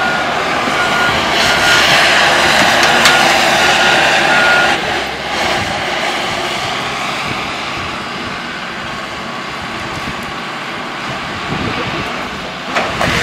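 John Deere excavator's diesel engine running under load as its grapple works, with a backup alarm beeping at an even pace for the first five seconds. The engine then runs more steadily, and a few sharp knocks come near the end.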